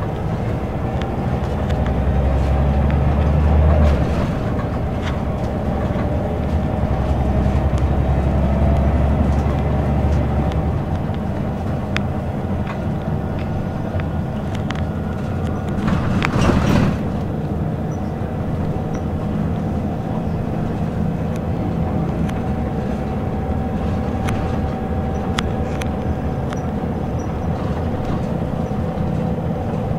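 Inside a Scania L94UB city bus with a ZF automatic gearbox, under way: the engine and drivetrain drone steadily with road noise and scattered interior rattles. The low engine drone is heavier in the first ten seconds and eases off about ten seconds in. A brief loud rushing whoosh comes about halfway through.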